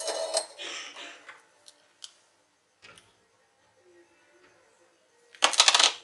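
Small metal parts clinking and rattling as hands handle a 3.5 mm headphone jack and its wires: a burst of rapid clicks in the first second and a half, a few single ticks, then a shorter, louder rattle near the end.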